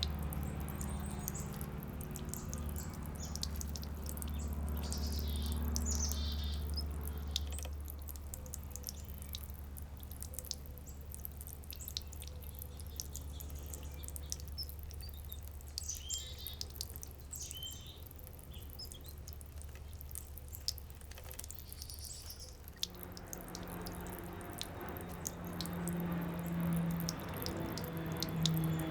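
Water dripping and splashing in a backyard fountain, with small birds chirping on and off over it. A steady low hum runs underneath, and a low droning tone comes in near the end.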